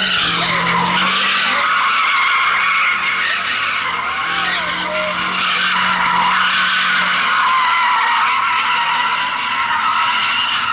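Vehicle tyres squealing continuously on pavement while spinning donuts. The squeal wavers in pitch over the steady sound of the engine beneath it.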